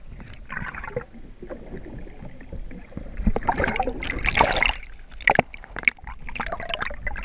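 Muffled water sloshing and gurgling around a camera held underwater, in uneven surges that are loudest in the middle, with a couple of sharp knocks near the end.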